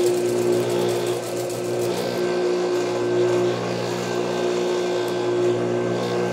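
Juki industrial sewing machine running with a steady hum as it stitches two fabric strips together.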